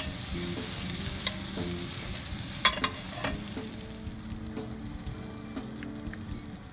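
Sliced onion, garlic and ginger sizzling in hot oil in a stainless steel pan while a spatula stirs and scrapes them, with a few sharp clicks of the spatula against the pan in the first half. The sizzle dies down over the second half.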